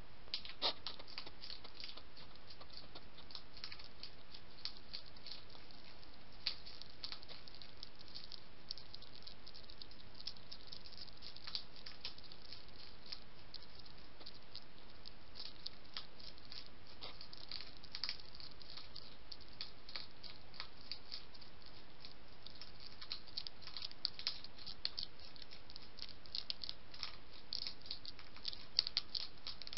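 A European hedgehog crunching dry kitten kibble: rapid, irregular clicks and crackles, coming thicker near the end, over a steady hiss.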